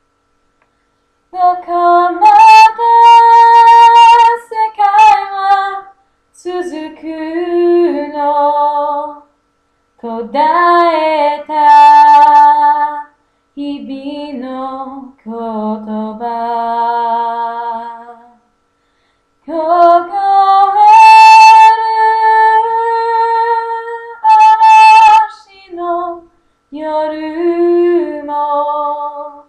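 A young girl singing a Japanese ballad solo and unaccompanied. The phrases include several long held notes and are separated by short silent breaks.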